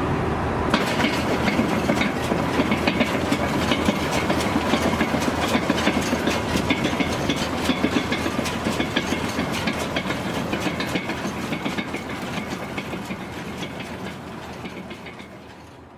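New Holland 648 round baler running off a tractor, a dense, rapid mechanical clatter over the steady engine; the clatter starts suddenly about a second in and fades away over the last few seconds.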